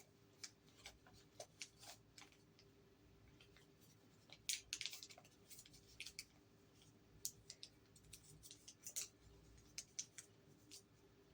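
Small paper packaging being handled: scattered short scratches, rustles and clicks, busiest about four to five seconds in and again near nine seconds.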